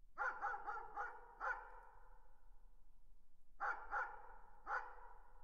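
A dog barking in the distance: a quick run of five barks, then after a pause of about two seconds three more. Each bark trails off in an echo.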